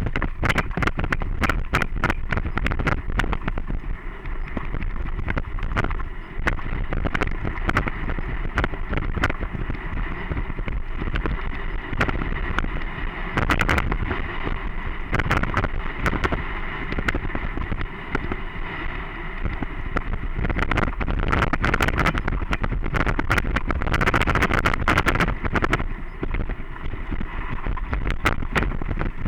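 A bike riding fast over a rough dirt single-track trail: wind buffeting the microphone and a steady rumble, with many sharp rattles and knocks as the bike and camera mount jolt over the ground.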